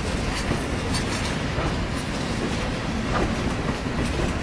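Norfolk Southern coal train's hopper cars rolling past: a steady rumble of wheels on rail, with scattered sharp clicks.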